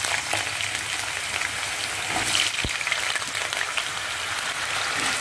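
Potato wedges shallow-frying in hot mustard oil in a pan: a steady, dense sizzle with fine crackling, as more wedges go into the oil.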